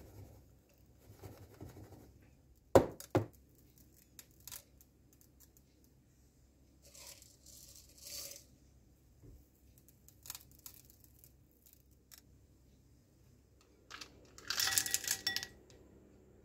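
Kitchen handling sounds: a metal loaf pan knocks twice on the countertop about three seconds in, the loudest sound. Chocolate chips scatter briefly onto the batter around the middle, and a louder crinkling, tearing rustle comes near the end.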